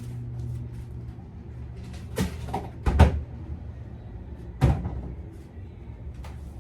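Three knocks and bumps of kitchen things being handled, the loudest about three seconds in, with others just before it and near five seconds.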